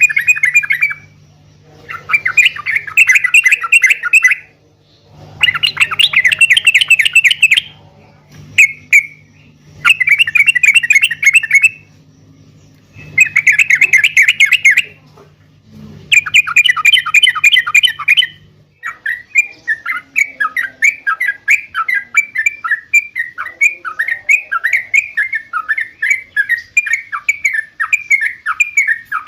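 Sooty-headed bulbul (trucuk) singing in loud bursts of rapid chattering notes, each a couple of seconds long with short pauses between. About two-thirds of the way through, the song changes to an unbroken run of quick repeated notes.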